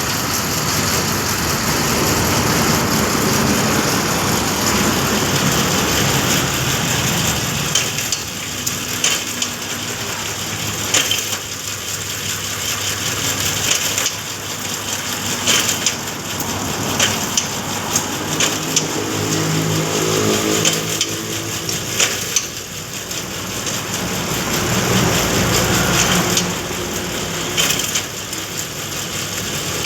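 Bamboo satay-skewer machine running under load, bamboo scraping and splintering as it is split and shaved into skewers. The motor's hum rises and falls, with sharp cracks every second or two.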